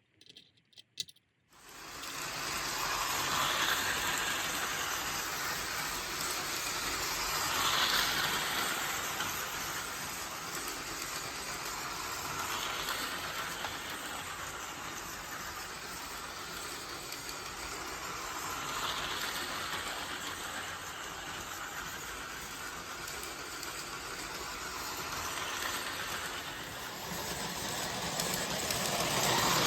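Lionel L.A.S.E.R. model train running on its track, a steady whirring rattle of motor and wheels on rail joints. It starts about a second and a half in after a few faint clicks, and swells and fades several times as the train comes round close and moves away.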